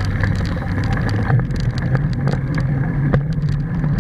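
Traffic on the adjacent road running as a steady low hum, mixed with the rumble of the ride along the paved path and frequent sharp clicks and rattles, typical of a handlebar-mounted camera jolting over bumps.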